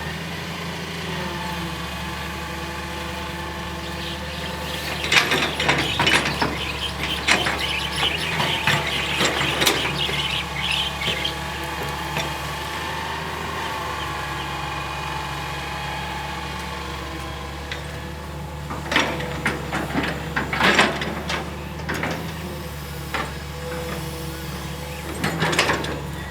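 Hitachi EX220-1 long-reach excavator's diesel engine running steadily. Bursts of clatter and high squeaks come from the machine working, about five seconds in, again near twenty seconds, and just before the end.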